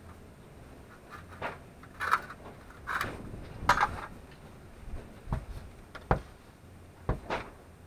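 A short hand tool chopping and scraping into packed dirt: about eight irregular hits, some sharp thuds and some gritty scrapes with soil scattering.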